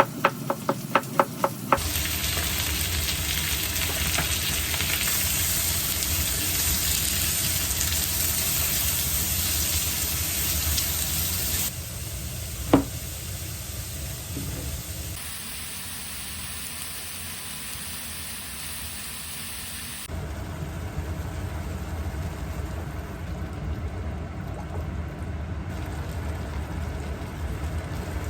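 Kitchen cooking sounds in several short clips: a quick run of knife chops at the start, then food sizzling in a frying pan for about ten seconds. After that come quieter pan sounds with a single sharp clink.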